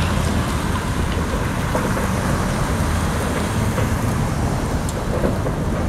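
Steady traffic noise from congested cars queued and moving through a city intersection: a constant rush with a low engine hum underneath.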